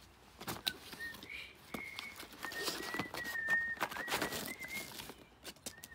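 A thin, high whistle held at a nearly steady pitch for about five seconds, wavering slightly, over crinkling and clicking of plastic packaging being handled.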